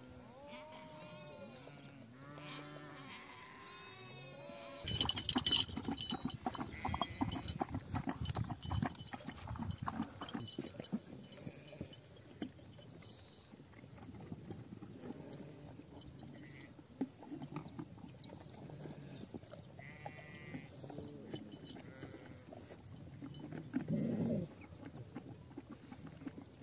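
A flock of sheep and goats bleating, with several bleats in the first few seconds. From about five seconds in comes the louder jostle of the flock, with bells clanking among the knocks.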